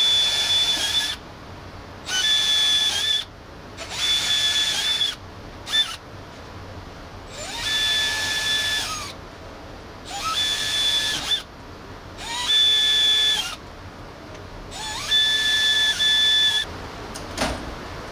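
Power drill run in about eight short bursts of a second or so each. The motor whine rises as it spins up, holds a steady pitch, and falls away as the trigger is released.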